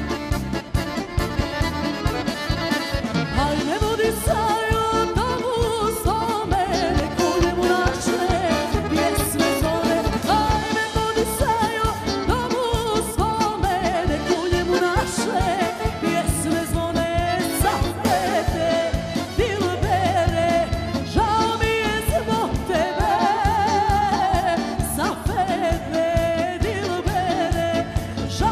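Live band music with a singer's voice over it: a song performed on stage with drums and keyboards.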